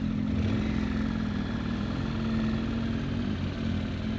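Motorcycle engine running steadily at low speed as the bike rolls slowly along a muddy grass track, with a small dip in pitch about three and a half seconds in.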